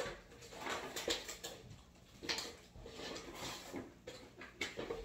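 Small plastic toy pieces being handled and moved about, giving a scatter of light clicks and rustles.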